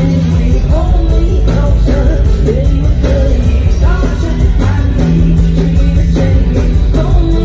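Loud live pop-rock band music from a concert stage: drums, bass and guitar, with a female singer's voice.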